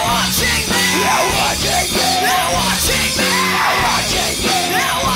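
Live punk band playing loud, with drums and guitar and shouted vocals.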